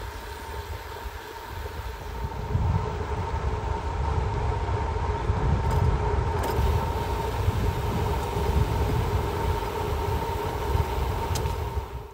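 Wind rushing over the microphone and rolling road noise from a moving vehicle, with a steady hum running under it. It gets louder about two and a half seconds in.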